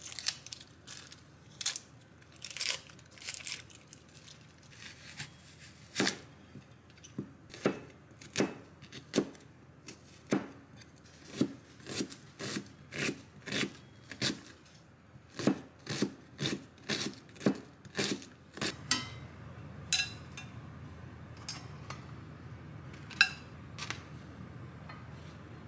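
Knife chopping an onion on a plastic cutting board: sharp knocks, spaced out at first, then about two a second. The chopping stops about 18 seconds in and gives way to a steady low rush with a few light clinks.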